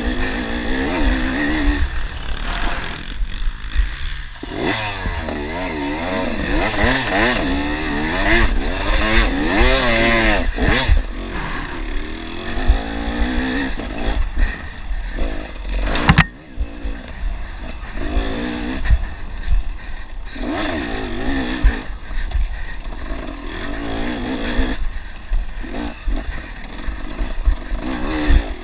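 Enduro dirt bike's engine revving up and down over and over as it is ridden hard, with the bike rattling. A sharp knock about halfway through.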